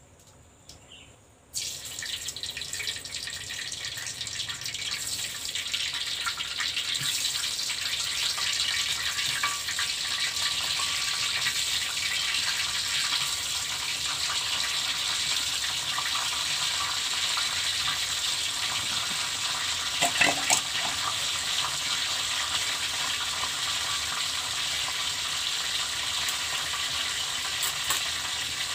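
Frying sizzle in a wok over a wood fire: a steady hiss that starts suddenly about a second and a half in. A few brief knocks about twenty seconds in.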